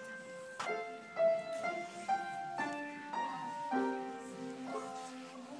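Piano music: a slow melody of single notes and chords, each struck and left to ring, a new one about every half second.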